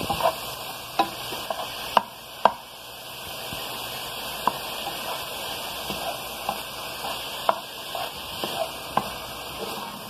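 Ground pork sausage sizzling steadily as it browns in a frying pan. A spatula scrapes and taps against the pan every second or so as the meat is stirred and broken into small crumbles.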